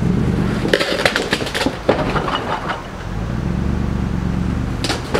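A 4x4 truck's engine revving under load while rock crawling. About a second in there is a cluster of sharp knocks and cracks, and the engine comes back up steadily in the second half, with one more sharp crack near the end.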